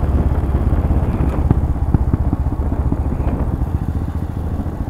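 Royal Enfield Himalayan's single-cylinder engine running as the motorcycle rolls along at a steady pace, a pulsing low rumble with wind rush over it.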